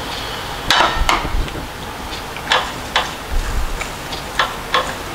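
Metal spoon clicking and scraping against a plastic tub and a ceramic bowl as tahini is scooped and spread over hummus: irregular sharp clicks, the loudest two about a second in.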